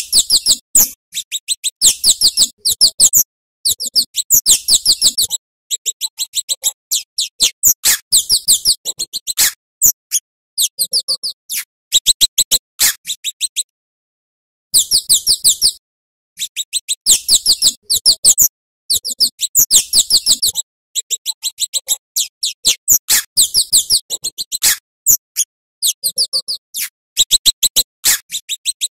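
Scarlet-headed flowerpecker (cabai jawa) singing: rapid, high, thin ticking notes in quick runs lasting a second or two, broken by short pauses.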